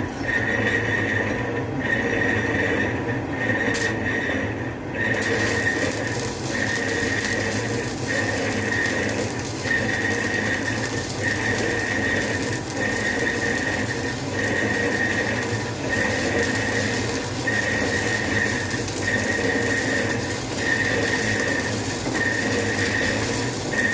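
A machine running steadily with a regular beat: a high tone that cuts in and out a little more than once a second over a low hum, with a hiss joining about five seconds in.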